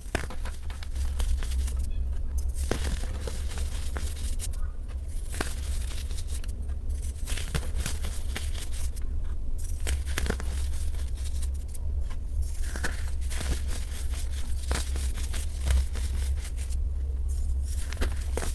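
Dyed baking soda being crushed and crumbled, a crisp crackling crunch full of small clicks, coming in strokes with brief lulls about every two and a half seconds. A steady low hum runs underneath.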